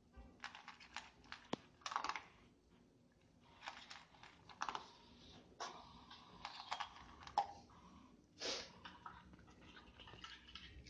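Havanese dog eating dry kibble from a stainless steel bowl: irregular crunching and clicks of kibble against the metal, in short clusters.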